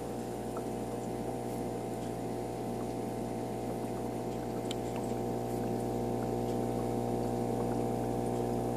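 Steady hum of an aquarium's pump motor, getting slightly louder near the end.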